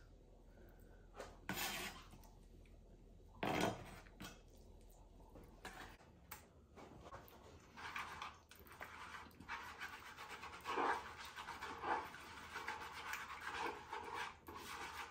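A few knocks of a chef's knife on a plastic cutting board, then, from about six seconds in, a fork scraping in quick repeated strokes against the bottom of a wooden salad bowl, mashing anchovy fillets into a wet dressing.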